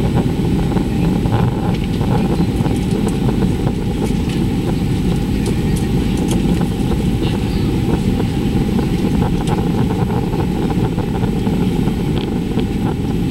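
Airbus A330-200 cabin noise after takeoff: a steady low roar of the engines and rushing air, with a faint steady whine above it.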